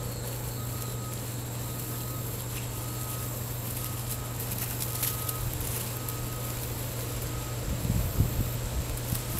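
Steady low hum with a faint, high electronic beep repeating a little more than once a second, and a few low rumbles about eight seconds in.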